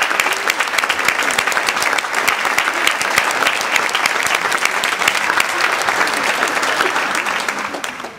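Audience applauding, a dense patter of many hands clapping, which fades away near the end.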